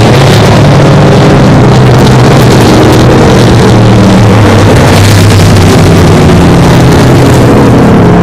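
Dirt-track stock cars racing: several engines running hard at once, very loud and steady, their pitches shifting as the cars go round the oval.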